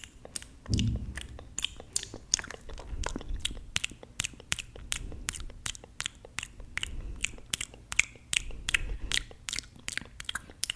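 Wet finger-sucking and licking mouth sounds close to a microphone: a fast run of sharp smacks and clicks, several a second, with a soft low thump about a second in.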